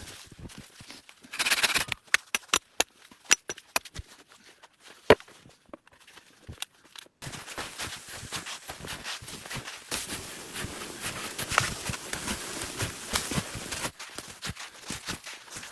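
Scattered sharp clicks and knocks, then, after an abrupt change, a steady crackling rustle full of small clicks, like crunching and handling noises outdoors in snow.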